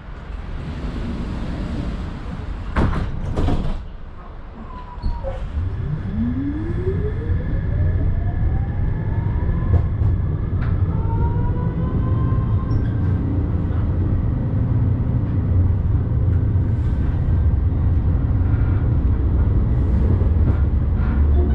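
Electric tram pulling away: a couple of sharp knocks about three seconds in, then the traction motors' whine rising steadily in pitch as it accelerates, over a growing low rumble of wheels on rails.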